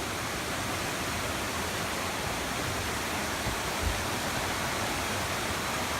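Mosquito River rushing over and above its falls: a steady, even rush of water. A brief low thump about four seconds in.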